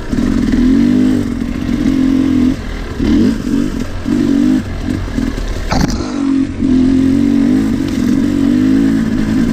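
Two-stroke 300 cc Sherco enduro bike engine being ridden on a trail, its revs rising and falling as the throttle is worked on and off. A sharp knock comes about six seconds in.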